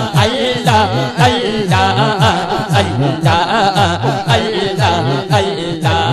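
Devotional zikr chant: a lead voice and a gathering of men chanting 'Allah' together in a rhythmic, repeating pattern through a loud PA system, with regular percussive beats about twice a second.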